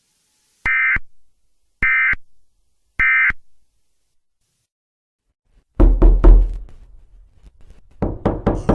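Three short bursts of Emergency Alert System (SAME) digital data tones, about a second apart: the end-of-message signal that closes an EAS broadcast. After a few seconds of silence, a run of loud, deep knocking hits breaks in, the start of a music track.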